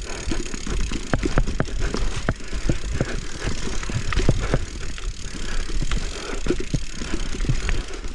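Mountain bike rolling down a rough dirt trail, with frequent irregular knocks and rattles from the bike over a steady low rumble.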